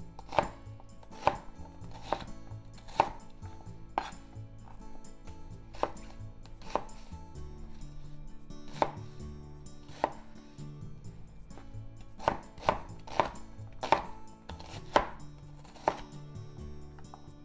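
Chef's knife chopping an onion on a wooden cutting board: single knife strikes about once a second, coming quicker toward the end as the onion is diced.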